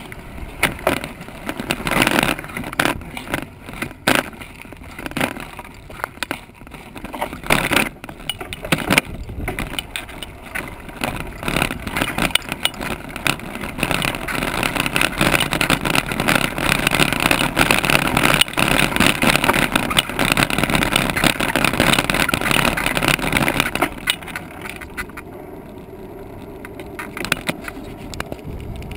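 Bicycle rolling over rough ground. Its frame and the mounted camera knock and rattle sharply over sand for the first dozen seconds, then give a dense steady rattle on a dirt path, and the sound drops to a quieter steady hum near the end as the bike reaches smooth pavement.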